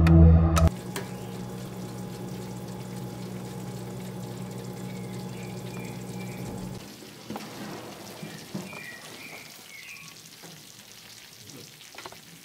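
Potato gratin bubbling and sizzling in its glass dish under an electric oven's grill, with a steady low hum that stops about seven seconds in, leaving a fainter crackle.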